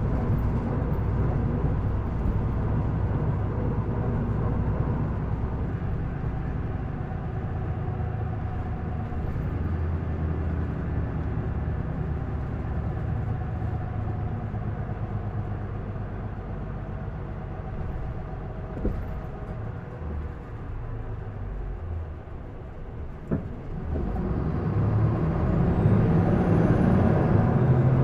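Isuzu Erga city bus's diesel engine heard from inside the cabin: running steadily and easing off through the middle, then pulling harder and louder from about 24 s as the bus accelerates. A single sharp click comes just before the acceleration, and a faint high whine rises and falls near the end.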